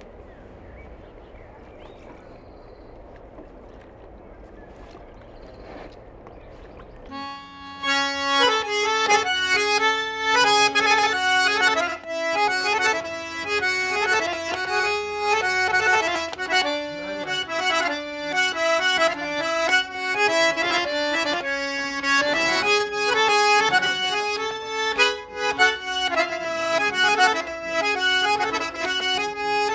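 Accordion playing a melody over a steady held lower note. It starts about seven seconds in, after a few seconds of faint background noise.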